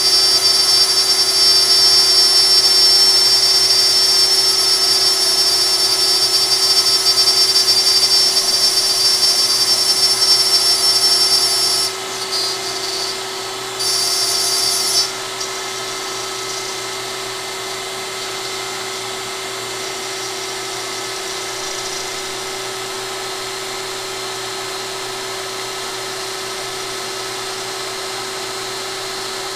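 DeWalt compact router on a LowRider CNC machine spinning and cutting with a steady high whine. About twelve seconds in the cutting noise breaks off, returns briefly, and from about fifteen seconds on the router runs at a lower, steady level.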